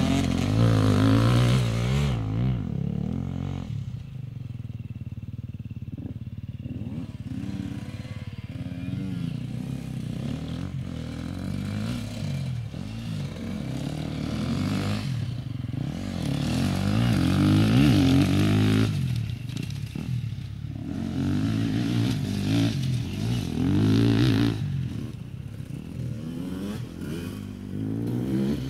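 Enduro dirt bikes, a KTM XC-W 125 two-stroke and an EXC-F 250 four-stroke, revving up and down as they ride a tight practice course. The engine pitch keeps rising and falling with throttle and gear changes. It is loud at first, fades as the bikes ride off, and comes back louder about two-thirds of the way through and again near the end.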